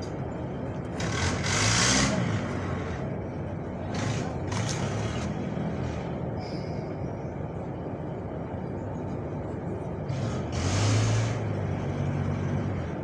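Road traffic running steadily, with two louder vehicles passing, one about a second and a half in and one near the end.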